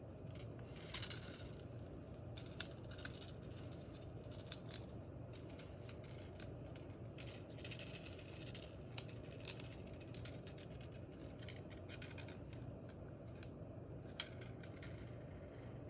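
Small, irregular clicks and taps of 3D-printed plastic parts being handled and pressed together by hand, over a faint steady low hum.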